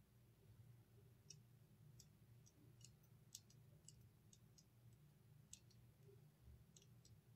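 Near silence: a low steady hum, with faint, irregular small clicks scattered through it.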